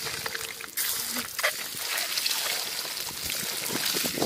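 Peeled boiled eggs frying in hot oil in a metal kadai, sizzling steadily. The sizzle jumps sharply louder about three-quarters of a second in as another egg goes into the oil.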